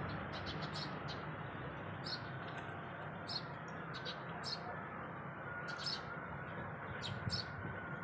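Birds chirping: short, high calls scattered irregularly throughout, over a faint steady background.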